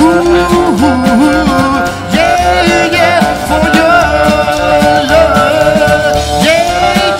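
A live rock and roll band playing: upright double bass, drums and acoustic and electric guitars, with bending guitar lines over a steady low beat.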